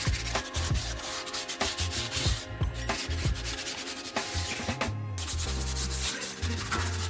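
Repeated rubbing strokes against a surface, over background music with a deep bass line that steps from note to note.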